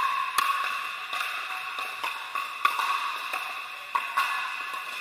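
Pickleball paddles hitting hard plastic balls, with the balls bouncing on the court: about eight sharp pops at an uneven pace from several courts. Each pop echoes through the large indoor hall over steady background noise.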